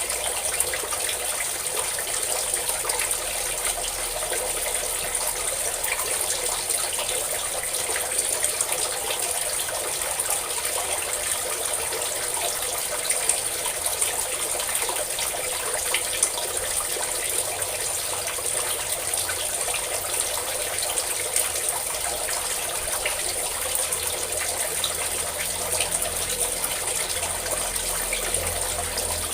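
Water pouring in a steady stream and splashing, a continuous gushing with small splashes.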